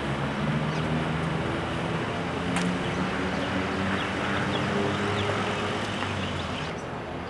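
Urban road traffic: vehicle engines running with a steady hum under a wash of street noise, dropping a little near the end.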